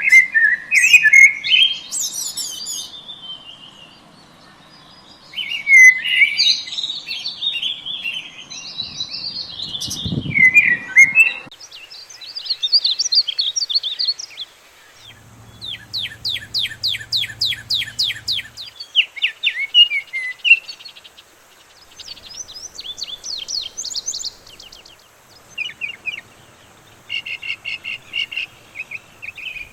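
Several songbirds singing in turn: varied high chirps and warbling phrases, with a fast repeated trill in the middle. A short low rumble comes about ten seconds in, and a faint low hum runs under the birds for a few seconds soon after.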